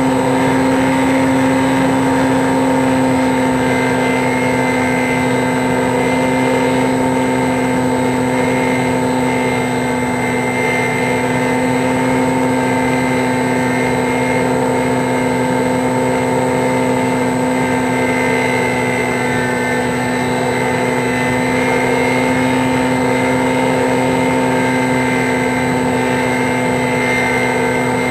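A steady mechanical drone: a low hum with a higher whine above it over a rushing hiss, holding its pitch apart from a slight dip midway.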